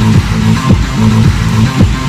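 Electronic dance music with a heavy, repeating bass beat.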